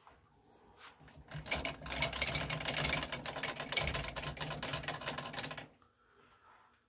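Metal lathe running, with a rapid mechanical clatter over a steady hum for about four seconds, starting about a second and a half in and stopping near the end.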